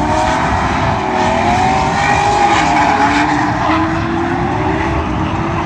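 Drift cars sliding through a corner, their engines held high in the revs with the pitch wavering up and down as the throttle is worked, over a steady hiss of spinning tyres.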